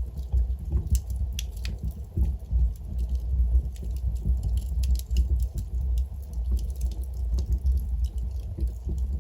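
Wood logs burning in a fireplace, crackling with many irregular sharp pops and snaps over a steady low rumble of the flames.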